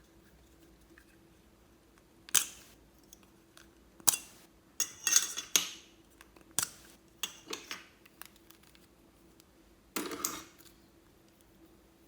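Small hard objects clicking and clacking as they are handled, in about half a dozen separate sharp bursts, over a faint steady hum.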